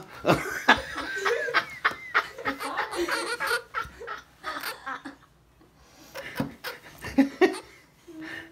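People laughing in bursts, with scattered sharp clicks and knocks, and a short lull about five seconds in.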